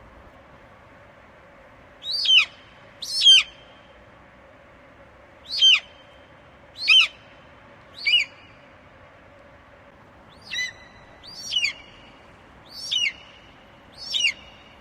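Eagle calling: nine short, high, piercing cries in irregular succession, each sliding sharply down in pitch, over a faint steady background hum.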